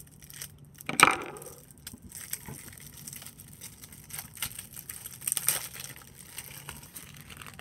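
Clear cellophane shrink-wrap being cut and peeled off a tarot deck's box: one sharp crack about a second in, then a run of small crinkles and crackles of the plastic, busiest a little past the middle.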